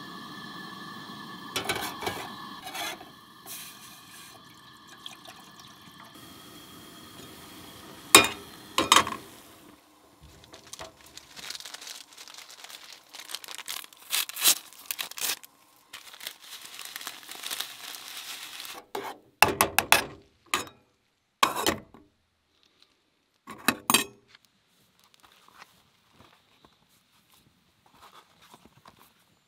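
Camp-stove cooking sounds: a small metal pot clinking on the stove grate and water pouring, then a paper packet crinkling and tearing for several seconds, followed by a handful of sharp metal clanks. Near the end only faint rustling remains.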